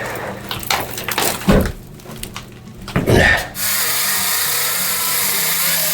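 Irregular knocks and clatter of wood being handled, then a power tool starts abruptly about three and a half seconds in and runs steadily at full speed.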